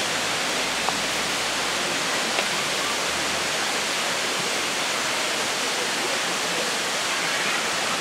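Steady, even rush of a waterfall, the Manai Falls, pouring into a narrow rock gorge.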